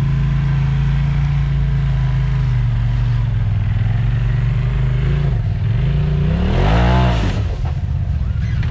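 Off-road vehicle's engine running at a steady speed, then revving up sharply about seven seconds in and dropping back.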